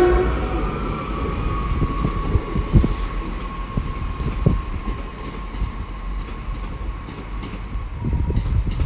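Chiltern Railways diesel multiple unit moving through the station, its sound fading, with a steady whine slowly dropping in pitch over a low rumble and scattered clunks from the wheels on the track.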